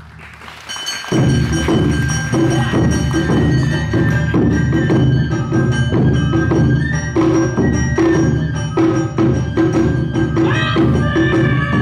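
Live Awa Odori accompaniment (narimono): taiko drums and the clanging kane gong driving a brisk beat, with a shinobue flute line and shamisen over it. It drops away briefly at the start and comes back in full about a second in.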